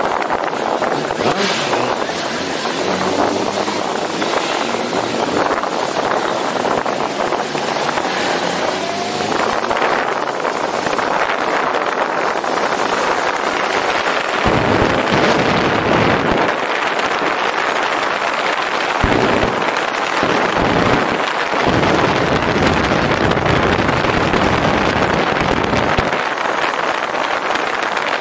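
Motorcycle riding along a road, its engine running under heavy wind noise on the bike-mounted microphone; from about halfway the wind buffeting gets stronger in irregular gusts.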